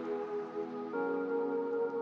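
Soft ambient background music: sustained, held chords that move to a new chord about a second in.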